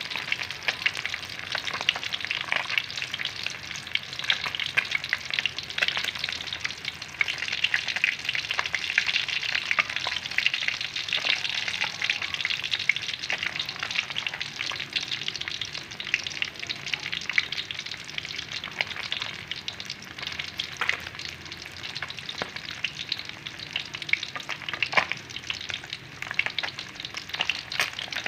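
Whole yellowtail scad shallow-frying in hot oil in a wok: a steady sizzle with scattered pops and crackles of spitting oil.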